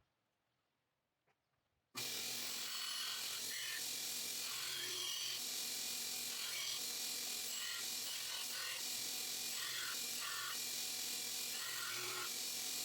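Belt grinder grinding the bevels of a San Mai kitchen knife blade: a steady hiss that starts suddenly about two seconds in, with short higher tones coming and going.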